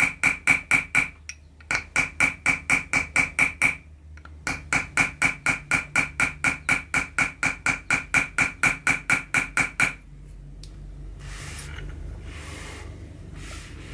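Chasing hammer tapping a steel chasing tool along a line in 0.6 mm copper sheet set in pitch: quick, even taps, about four to five a second, each with a short metallic ring. The tapping pauses briefly twice and stops about ten seconds in, followed by faint handling noises as the tools are changed.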